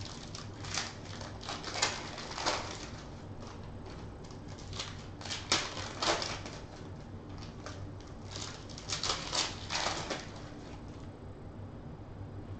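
Foil trading-card pack wrappers being torn open and crinkled, with the cards inside being handled: irregular bursts of crackling, loudest about two, six and nine to ten seconds in.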